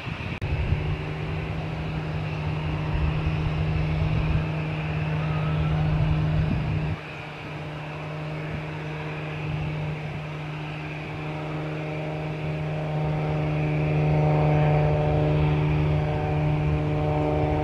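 Light propeller aircraft's engine and propeller humming steadily. The sound drops suddenly about seven seconds in, then grows louder again as higher tones join the hum in the second half.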